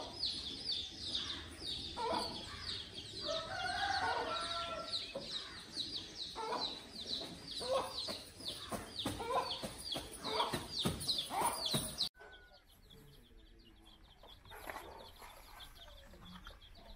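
Chicks peeping in a quick stream of short, high, falling notes, with a hen clucking lower among them. About twelve seconds in it cuts suddenly to fainter, sparser peeping.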